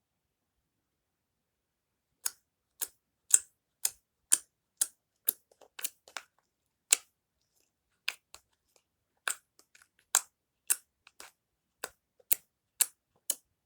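Slime being pressed and squeezed, giving short sharp clicking pops at about two a second. They begin about two seconds in, after a stretch of silence.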